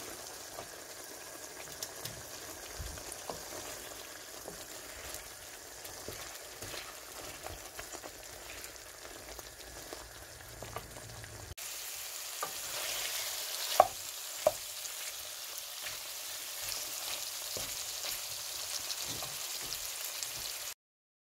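Chicken pieces sizzling in a pan, stirred with a wooden spoon. The sizzle gets louder about halfway through, two sharp knocks of the spoon on the pan follow shortly after, and the sound cuts off just before the end.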